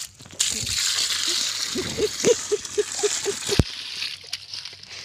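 Water pouring and splashing for about three seconds, then stopping abruptly. A quick run of short squeaks sounds over its last second or so.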